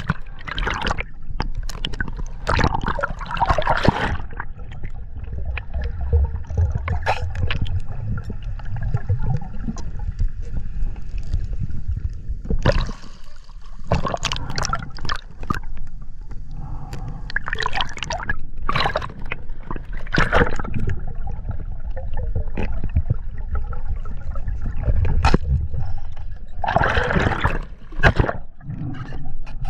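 Seawater sloshing, gurgling and splashing around an action camera at the ocean surface, which keeps dipping in and out of the waves, with a steady low rumble and irregular louder surges of water.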